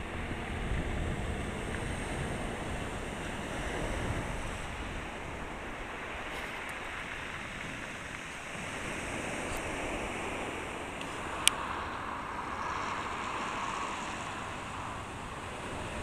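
Black Sea surf washing onto a pebble beach, a steady rush that swells and eases, with wind on the microphone. One sharp click about two-thirds of the way through.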